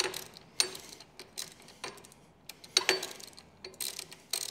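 Hand ratchet clicking as a socket runs in and snugs up bolts, irregular sharp ticks about two a second.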